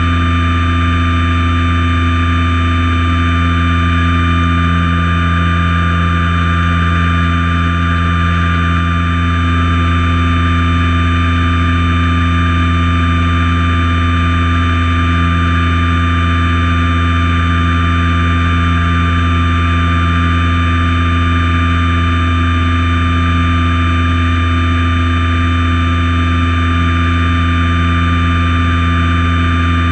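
Light aircraft's engine and propeller in level flight, a loud, steady drone of several constant tones that does not change pitch.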